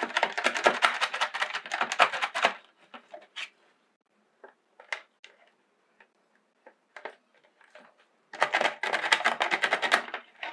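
Kitchen knife blade scraping quickly over the side of a plastic bucket, shaving off the melted burrs around holes burned through it with a hot wire. Two runs of quick scraping strokes, one lasting about two and a half seconds at the start and another about eight seconds in, with a few scattered scrapes between.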